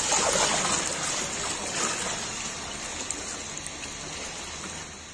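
A heavy stream of thick white liquid poured from a large metal pot into a plastic basin, gushing and splashing into the liquid already there. It is loudest for the first couple of seconds, then eases off as the flow thins.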